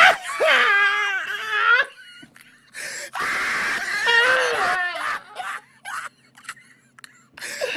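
A man's loud, high-pitched laughter in two long bouts that waver up and down in pitch, the second starting about three seconds in, followed by short scattered breaths and chuckles.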